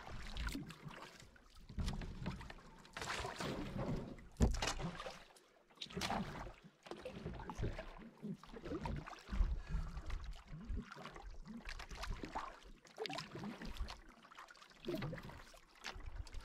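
Canoe being paddled: repeated paddle strokes swish and splash through the water, about one every second and a half, with a sharper knock about four and a half seconds in.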